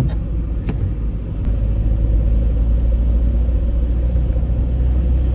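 Road noise of a car driving on a wet road, heard from inside the cabin: a steady low rumble that grows a little louder about a second and a half in, with a couple of light clicks early on.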